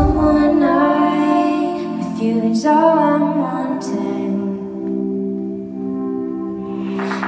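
Live electronic pop: women singing over held keyboard chords, with no drums. The voice fades after about four and a half seconds, leaving the sustained chord.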